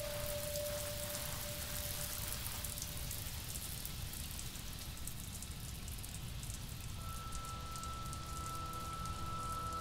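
Steady rain: an even hiss with fine scattered drop patter. A single held tone fades out about two seconds in, and a higher sustained chord of several held tones comes in around seven seconds in.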